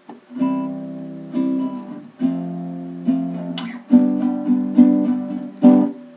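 Acoustic guitar played as a slow strummed intro: a chord struck roughly every second, ringing on between strokes, stopping briefly near the end.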